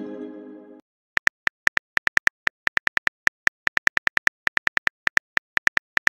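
Phone on-screen keyboard key clicks: a quick, irregular run of short taps, several a second, as a text message is typed. Before them, a short musical chime rings out and fades in the first second.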